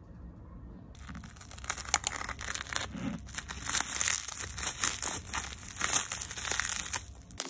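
Thin plastic packaging crinkling and crackling as a hand grips and pulls it open to unwrap a book, starting about a second in.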